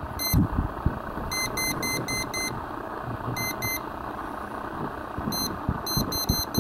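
Non-contact voltage detector beeping in short high-pitched chirps, about four a second, in groups that stop and start as its tip picks up 117-volt mains on a screwdriver blade stuck in an outlet's hot slot: the beeping signals live voltage. Low knocks from handling run underneath.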